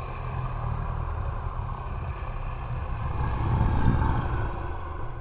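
A deep, rasping monster growl sound effect, drawn out in one long breath. It swells to its loudest a little past the middle, then fades.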